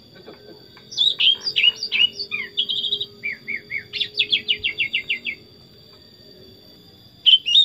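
Sooty-headed bulbul singing: a run of quick whistled notes, some sliding down in pitch, ending in a fast even string of notes, then a short phrase again near the end.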